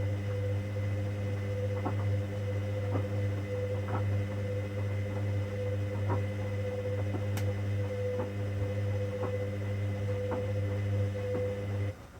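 Hoover Dynamic Next washing machine running in its 90 °C cotton main wash: a steady mechanical hum with a faint click about once a second. The hum cuts off suddenly near the end.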